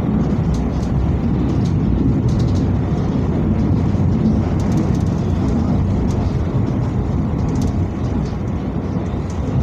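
Tram running along its track, heard from inside near the front: a steady low rumble of motors and wheels on rail, with faint scattered ticks above it.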